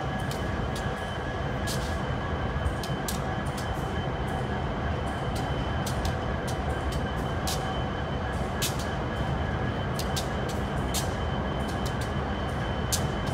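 Union Pacific intermodal freight train rolling slowly past: a steady low rumble of the cars with frequent irregular sharp clicks and clanks from the wheels on the rail, over a faint steady high-pitched tone.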